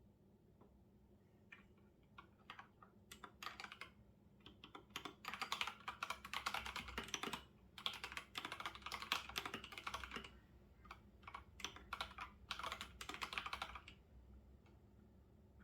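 Computer keyboard typing in fast runs of key clicks, with a brief pause about halfway through and only a few stray keystrokes near the end.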